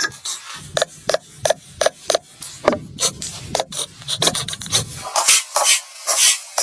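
A hand tool scraping or rasping wood in short repeated strokes, a few a second, louder and sharper near the end.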